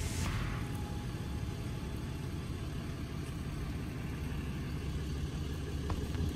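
Tow truck engine running steadily at low speed as the truck reverses its wheel-lift up to the front of a parked car.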